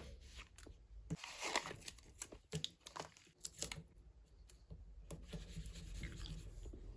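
Faint rustling and crinkling of paper and sticker sheets being handled, with short scratchy taps, as a sticker is pressed onto a paper planner page.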